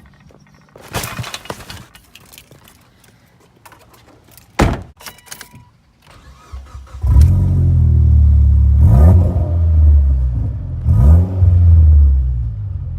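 Keys and rustling, then a single thump, then a Mitsubishi Lancer Evolution X's turbocharged four-cylinder starts about halfway through, runs loudly at idle and is revved twice.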